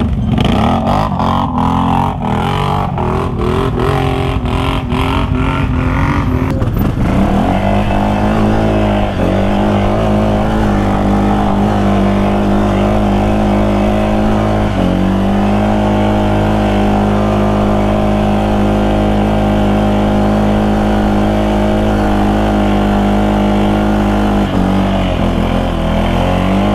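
Off-road vehicle engine held at high revs under load on a steep climb, with repeated knocks over the first several seconds. From about a quarter of the way in the engine note stays high and steady, dipping briefly a few times.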